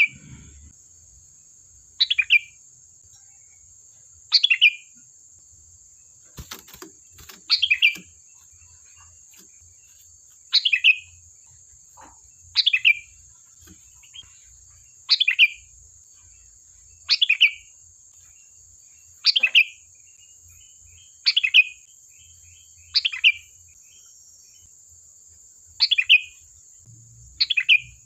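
Sooty-headed bulbul (kutilang) calling over and over: a short, bright call about every two seconds, each one dropping quickly in pitch, about a dozen in all. A faint steady high hiss runs underneath.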